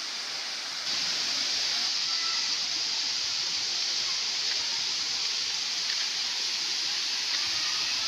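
Steady rushing hiss of a waterfall and its stream, stepping up slightly in loudness about a second in.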